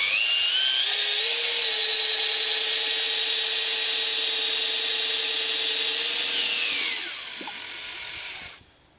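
Drill-driven Vortex Power Mixer paddle stirring heavy plaster in a bucket. The drill's motor whine rises as it spins up, runs steady, then falls away as it slows about seven seconds in, leaving a quieter noise that stops shortly before the end.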